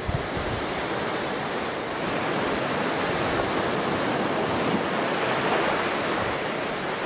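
Low surf washing onto a sandy beach: a steady, even rush of breaking water.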